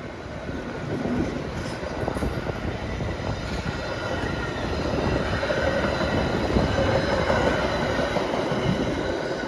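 Passenger train passing close by: a steady rush and rumble of wheels on rail that grows louder over the first few seconds, with a faint high wheel squeal in the second half.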